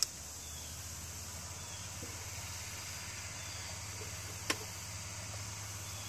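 Quiet outdoor background: a steady low hum and an even hiss, with one sharp click a little past the middle. The chainsaw is not running.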